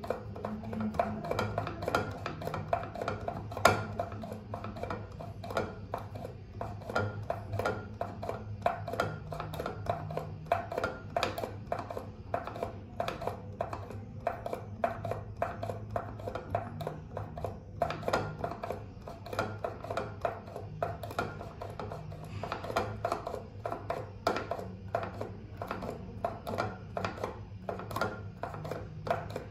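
Pump of an empty plastic liquid-soap dispenser being pressed again and again, clicking about two to three times a second and giving out no soap: the bottle has run dry.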